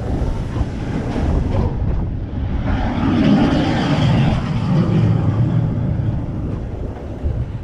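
Seven Dwarfs Mine Train roller-coaster cars rolling along the steel track, heard from a rider's seat as a steady, loud rumble. The rumble is heaviest about three to five seconds in, as the train runs through the outdoor curves.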